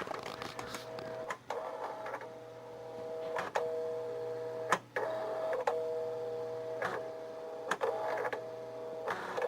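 Commodore MPS 1270 inkjet printer printing its self-test page. Its print-head carriage runs with a steady whine, broken every second or so by a brief pause with a click. The cleaned print head is printing properly again.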